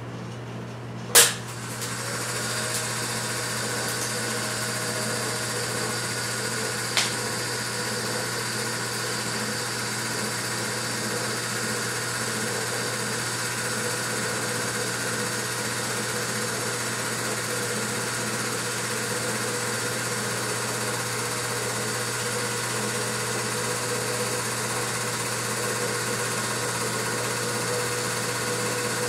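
Film projector running: a steady motor hum and mechanical whirr, with a sharp click about a second in and a fainter click a few seconds later.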